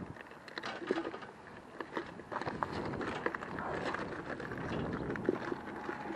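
Electric scooter tyres rolling over loose gravel, a steady crunching with many small stone clicks and rattles; it gets louder about two seconds in.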